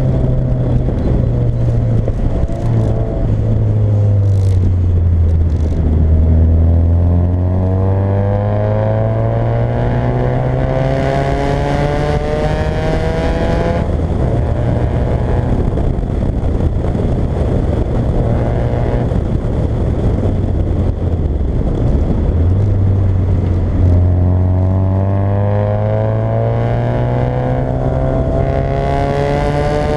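Fiat Coupé 1.8 16v's four-cylinder engine under way: it slows for the first few seconds, then pulls hard with rising revs until a sudden drop in revs about fourteen seconds in, eases off again, and climbs once more in the last several seconds.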